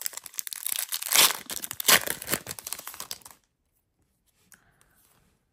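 A foil Topps Chrome trading-card pack wrapper being torn open and crinkled by hand, loudest about one and two seconds in, stopping after about three seconds.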